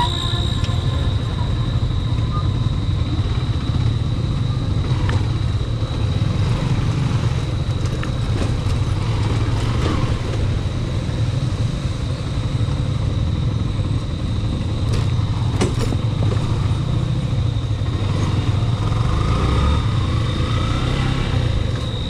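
Yamaha Fazer FI's 149cc single-cylinder engine running steadily under way, with road and wind noise.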